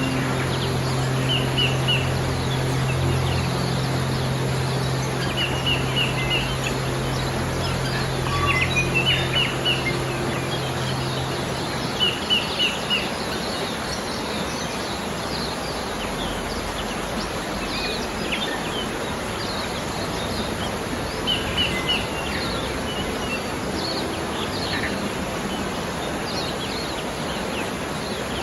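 Mountain stream running steadily, with small birds chirping over it, one repeating a short three-note phrase several times. A low steady hum underneath stops about twelve seconds in.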